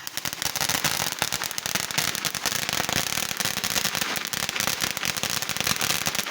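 Consumer fireworks crackling: a dense, continuous rattle of rapid small pops that starts suddenly and keeps going.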